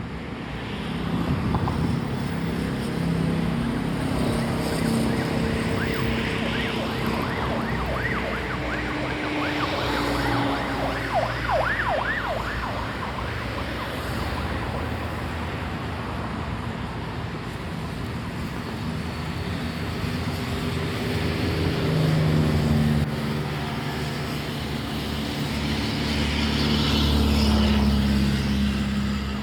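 Road traffic: motor vehicle engines passing, their pitch stepping up and down as they change speed.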